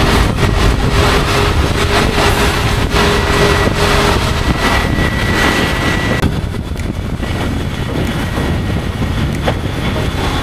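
Riding on a motorbike on a wet road: wind rushing over the microphone mixed with engine, tyre and traffic noise. A faint steady whine runs through the first half and stops about halfway through.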